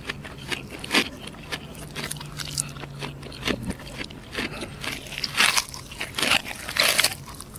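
Crispy fried chicken crust crunching as it is bitten and chewed close to the microphone: a string of sharp crunches that come thicker in the second half, over a faint low steady hum early on.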